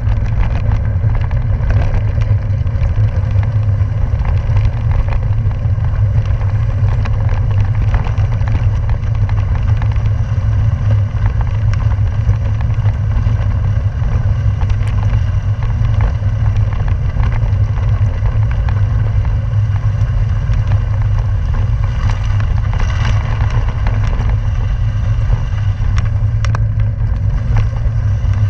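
Bicycle rolling over a loose gravel road: a steady, deep rumble of tyres on gravel, peppered with small clicks and rattles from stones and the bike.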